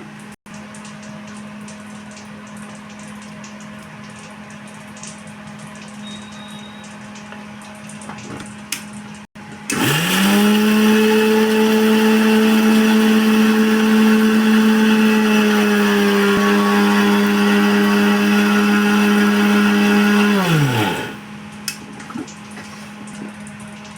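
Electric kitchen mixer grinder grinding dry spices for chai masala. About ten seconds in its motor whines up to speed, runs steadily for about ten seconds, then winds down. Before and after the run there is a low steady hum.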